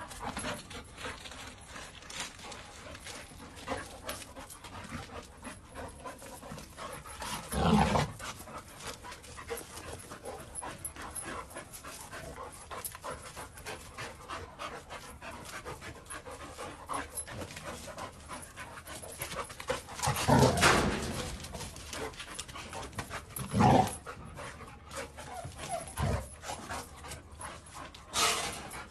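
Two dogs play-fighting, panting heavily, with scuffling and a few louder short bursts of noise from the dogs.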